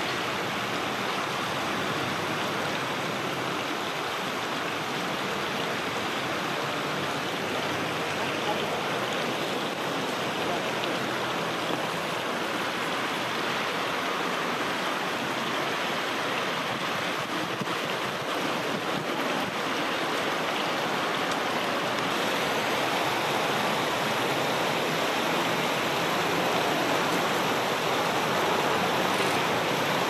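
Steady rushing of river water: an even hiss with no breaks that grows slightly louder near the end.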